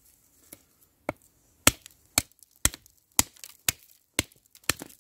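A Sami knife's blade chopping into a dead branch to lop off its small side branches: a steady series of sharp chops, about two a second.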